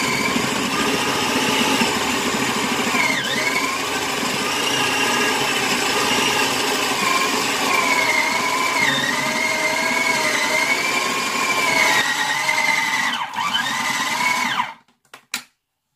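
Small food processor motor running under heavy load as it chops a thick, heavy dough of oats, walnuts, apple and dates, its whine wavering in pitch as the load shifts. The bowl is overfull and the dough heavy for the machine. The motor stops about a second before the end.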